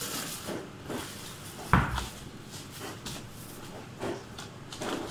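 Light kitchen handling noises with one solid thump a little under two seconds in, the loudest sound here.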